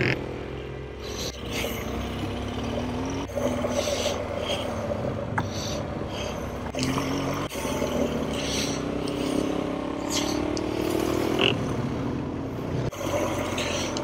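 Motorcycle engines on a gravel track, their pitch rising and falling as the riders open and close the throttle, with tyres crunching over loose gravel. The sound breaks off and changes abruptly three times as the clips are cut together.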